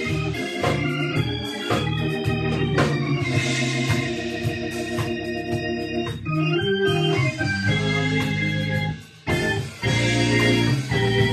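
Electric organ playing sustained chords over a bass line, briefly dropping out about nine seconds in.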